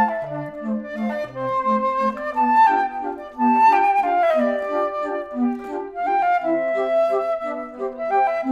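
Background music: a melody carried over an accompaniment of short, repeated low notes.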